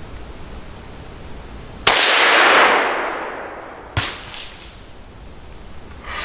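A single rifle shot about two seconds in, its crack echoing and dying away over a second or so, then a short sharp knock about two seconds later.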